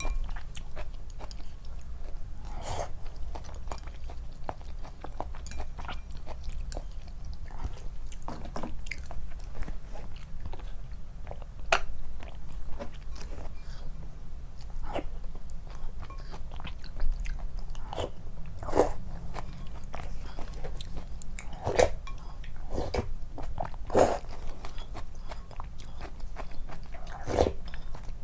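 A person chewing and biting soft food close to the microphone, with wet mouth clicks and a few louder bites, over a steady low hum.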